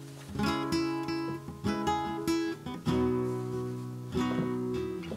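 Background music: acoustic guitar strumming chords, a new strum about every second and a quarter.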